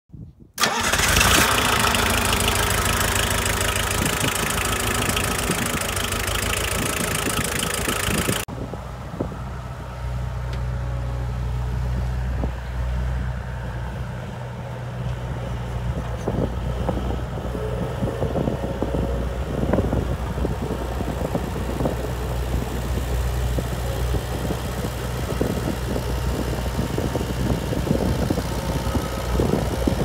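Bobcat 743 skid steer engine running, loud and full of high-pitched mechanical noise close up at the open engine compartment for the first eight seconds or so. After an abrupt change it becomes a steady low drone as the skid steer drives, with frequent clanks and rattles from the machine.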